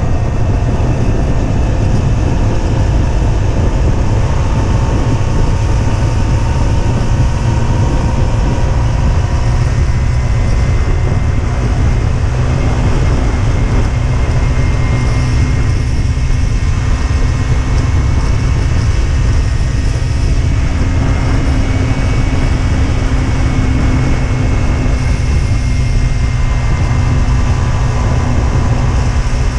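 Husqvarna Svartpilen 125's single-cylinder four-stroke engine running under way, its pitch drifting slowly up and down with the throttle. Heavy wind rumble on the helmet- or bike-mounted microphone.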